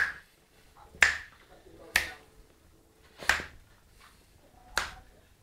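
Five sharp, dry clicks about a second apart, made by a person to catch the puppies' attention.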